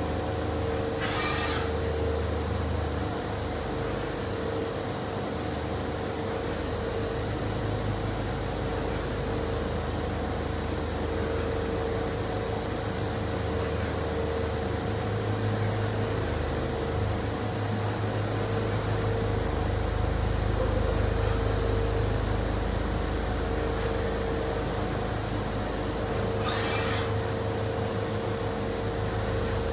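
Doosan Mynx 6500 vertical machining center running, with a steady whine and a low servo hum that rises and falls as the table traverses. Two short hisses come about a second in and near the end.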